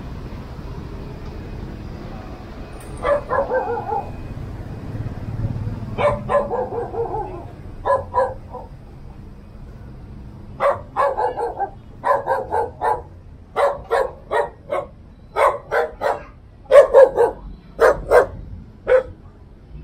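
A dog barking in short, sharp barks. A few come spaced apart at first, then from about halfway there are quick runs of barks, loudest near the end.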